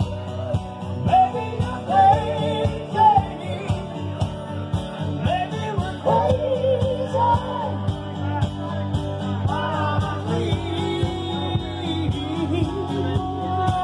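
Live music: a woman singing over strummed acoustic guitar, with a saxophone taking over the melody near the end.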